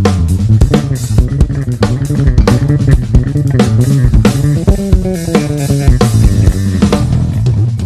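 Peavey Cirrus five-string bass guitar played fingerstyle: a busy line of plucked bass notes over a drum kit.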